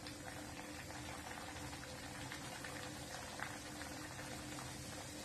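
A poori deep-frying in hot oil in a steel kadhai, the oil sizzling steadily with many small crackles.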